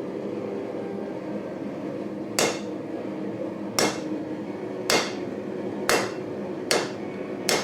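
Three-pound hammer striking hot quarter-inch square steel on an anvil, six blows about a second apart that begin about two and a half seconds in, each with a short metallic ring, over a steady low hum.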